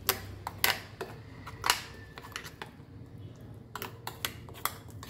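Steel spoon scraping and clicking against a stainless steel mixer-grinder jar while stirring thick masala paste. There are a few sharp knocks and scrapes, the loudest a little under two seconds in, then a run of lighter taps near the end.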